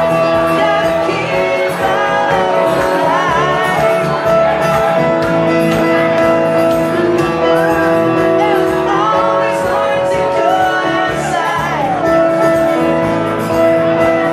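Live amplified pop music: a man singing over stage piano and acoustic guitar, with a sung melody over held chords.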